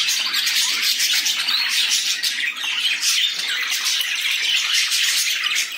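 Caged cockatiels and budgerigars chattering: a dense, unbroken mix of chirps and squawks.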